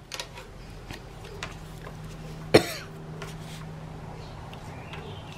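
One short cough about two and a half seconds in, over light handling of paper with a few faint clicks and a faint steady hum.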